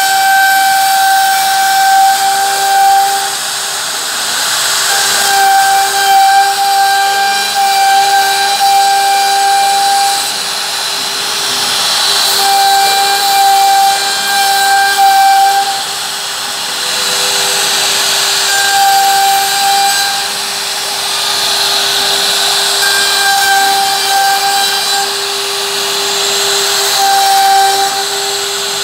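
CNC router cutting a roundover profile with its spindle: a steady whine under a hiss of cutting, with a higher tone that comes and goes every few seconds.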